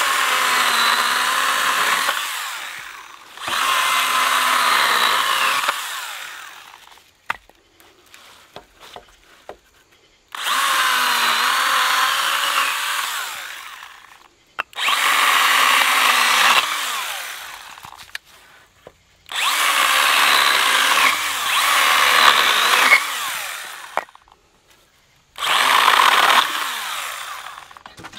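Stihl GTA 26 battery mini chainsaw cutting through thin branches in six short runs of a few seconds each. Each run starts abruptly and fades away at its end.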